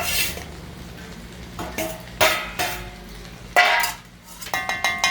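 Kitchen utensils clattering against dishes and a pan as prepared vegetables are tipped in, in several short scraping, knocking bursts, with a ringing clink near the end.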